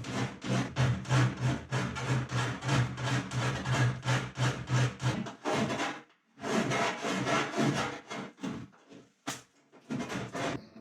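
Hand file rasping back and forth on the cut edge of thin aluminium sheet, about three strokes a second. The strokes stop briefly about six seconds in, then resume more unevenly.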